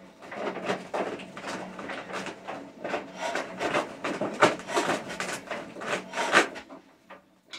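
Old Witte diesel engine being turned over by hand with heavy effort: a dense run of irregular scraping and knocking strokes over a faint steady low hum.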